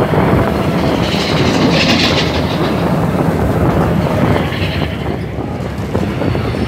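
Mine-train roller coaster cars rolling along their steel track, heard from a seat on board as a steady loud running noise, with a brief hiss about two seconds in.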